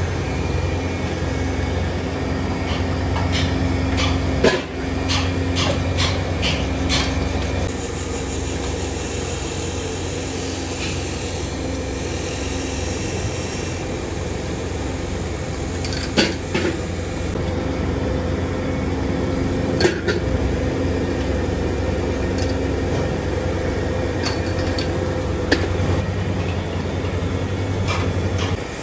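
Workshop lathe running with a steady electric hum while a fan-rotor shaft is machined under coolant. Light metallic clinks of loose cast rotors being handled come a few seconds in, with a few sharper single knocks later.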